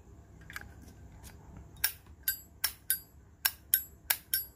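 Silver-plated Zippo lighter being flicked open and snapped shut, with its flint wheel struck: a string of about nine sharp metallic clicks with a bright ring. It is the lid and wheel sound that marks a good Zippo, with a crisp action and a sharp wheel.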